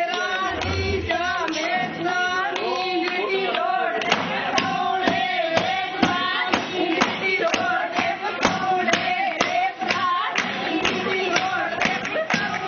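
A group of women singing Punjabi boliyan together. From about four seconds in, a steady beat of sharp knocks, about two a second, runs under the singing, the way a chajj (winnowing tray) is struck at a jago, with hand claps mixed in.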